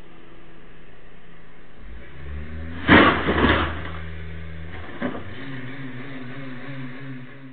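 A car engine revs up, then a loud crash about three seconds in, two heavy impacts half a second apart, as the car hits parked cars. A smaller knock follows about two seconds later, then a wavering hum, all heard through a home security camera's microphone.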